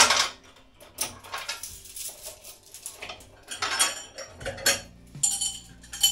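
Steel chain clinking and rattling as it is hooked onto the low pulley cable of a cable machine, opening with one loud metal clatter, followed by scattered clinks.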